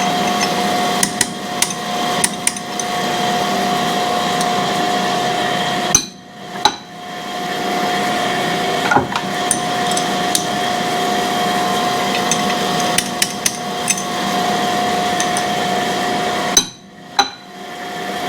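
Cam grinding machine running with a steady hum, overlaid by a scattering of sharp metallic taps and clicks, about fifteen in all, as the grinder's workhead is set back to zero.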